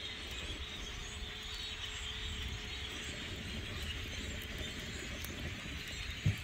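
Din of a very large flock of birds calling all at once, a dense, steady chatter that is so loud, over a low rumble, with a single low thump near the end.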